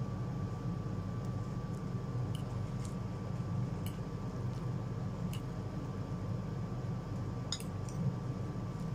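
Eating sounds from a plate of Indomie instant noodles: a spoon and fork clinking against a ceramic plate about five times, with squishy slurping and chewing, over a steady low hum.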